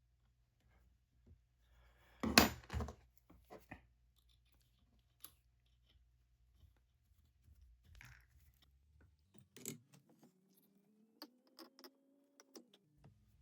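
Small metal watchmaking tools clicking and tapping on a workbench, with a sharp clatter about two seconds in. Near the end a small motor whirs, rising in pitch for a few seconds, then stops suddenly.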